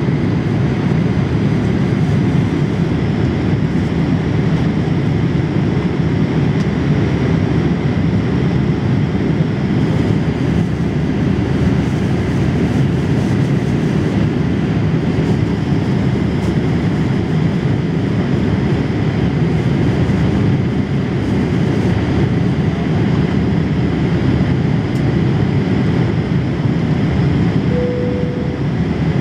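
Boeing 787 Dreamliner cabin in flight, heard from a window seat over the wing: a steady, deep noise of engines and rushing air, with a faint high whine. A brief tone sounds near the end.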